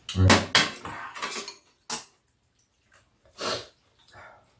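Eating ramen at a table: metal chopsticks and spoons clinking against bowls, with short bursts of noodles being slurped. One sharp click comes about two seconds in.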